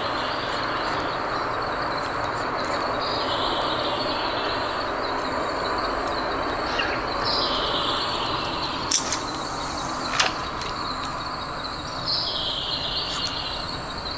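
A bird calling three times, a few seconds apart, each call a short falling phrase, over a steady high insect drone and background hiss. Two sharp clicks about nine and ten seconds in.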